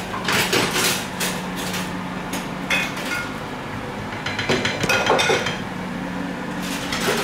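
Dishes and cutlery clattering and knocking at a kitchen sink, a string of irregular clinks and knocks over a low steady hum.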